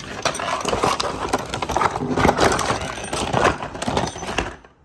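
A screwdriver set being unpacked: plastic packaging rustling and crackling, with many sharp clicks and knocks as the screwdrivers are handled. It drops off just before the end.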